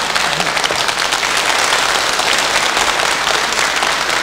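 Audience applauding: dense, steady clapping at the end of a song.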